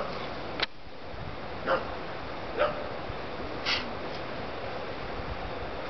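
Two dogs play-fighting, giving four or five short barks and yips about a second apart, most dropping in pitch, one higher and thinner near the middle, over a steady hiss.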